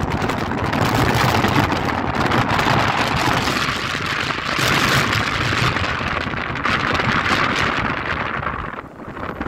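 Steady rushing noise of a moving boat's wash and wind buffeting the microphone, with a brief lull near the end.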